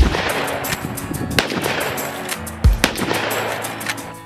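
Two rifle shots from a scoped Marlin 336W lever-action in .30-30, about two and a half seconds apart, the first with a long echoing tail, over background music.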